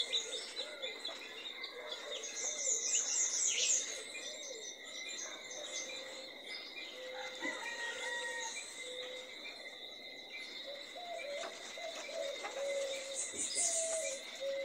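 Domestic mother hen clucking to her chicks in short, repeated low calls, over a steady high insect drone, with bursts of rapid high chirping about two seconds in and again near the end.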